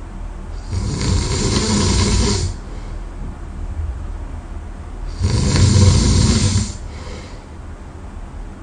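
A sleeping person snoring loudly: two long snores of about two seconds each, roughly four seconds apart, with quieter breathing between them.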